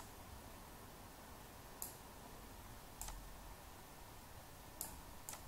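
Faint computer mouse clicks: about five single clicks, spaced irregularly, over quiet room tone.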